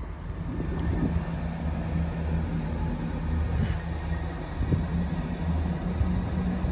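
Diesel multiple-unit train engines running with a steady low drone, swelling over the first second or so and then holding.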